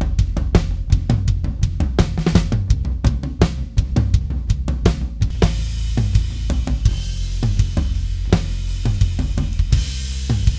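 Recorded drum kit playing a steady beat of kick, snare and hi-hat, with cymbals washing in about halfway through. The snare-top channel is being EQ'd on a mixing console for a snappier snare.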